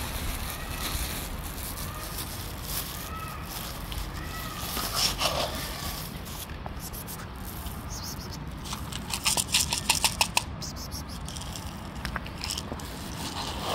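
Plastic packaging crinkling and being torn, with a rapid run of sharp crackles about nine seconds in. A few faint cat meows come in the first couple of seconds.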